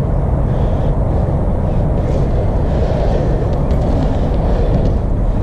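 A steady low rumbling noise with a few light clicks, and one sharp knock near the end.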